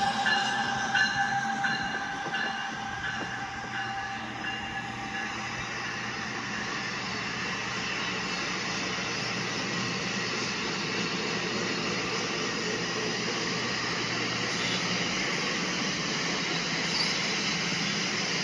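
LEGO City Passenger Train 60197 running on plastic LEGO track, its motor whirring and its wheels rattling over the track in a steady rolling noise. A few steady tones fade out over the first few seconds.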